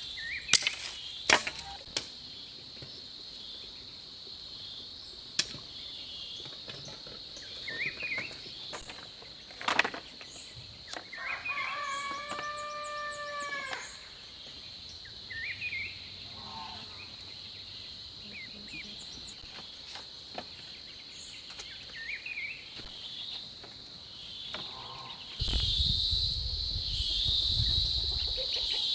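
A rooster crows once, a held call of about two and a half seconds near the middle, over a steady high insect drone. A few sharp knocks come in the first ten seconds, with scattered short bird chirps, and a low rumble comes in near the end.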